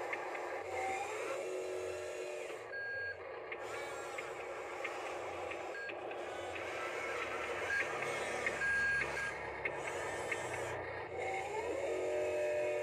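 Radio-controlled Huina wheel loader running, its small electric motors and gears whining as it drives and works in loose dirt. Short electronic beeps sound several times.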